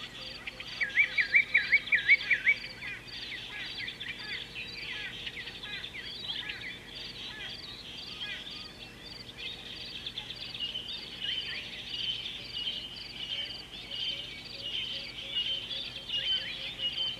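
Several wild birds chirping and calling at once. About a second in, one bird gives a fast run of about seven loud, repeated swooping notes, the loudest sound; many higher chirps go on throughout.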